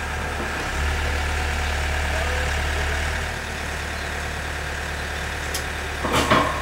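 Takeuchi mini excavator's diesel engine idling steadily, rising slightly for a couple of seconds about a second in. A short, loud burst of sound near the end.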